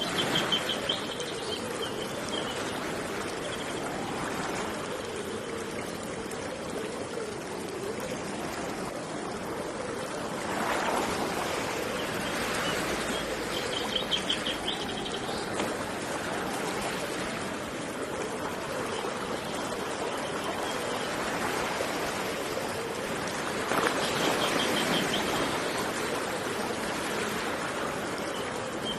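Steady rushing of running water that swells every ten seconds or so, with a small bird repeating a short, high, rapid trill a few times.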